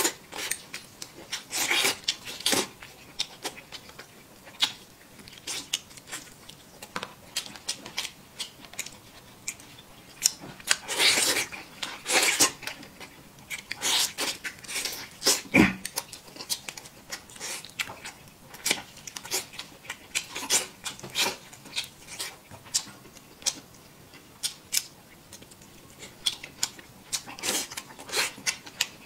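A man eating a chicken drumstick with his mouth close to the microphone: wet lip smacks and chewing as he bites and tears at the meat, many short clicks, with a few longer sucking noises around the middle.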